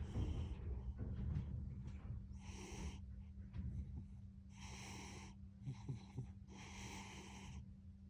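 Domestic cat snoring in its sleep: wheezy, rasping breaths about every two seconds, over a steady low hum.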